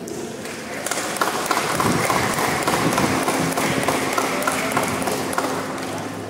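Audience applauding: a dense patter of many hands clapping that swells about a second in and holds steady.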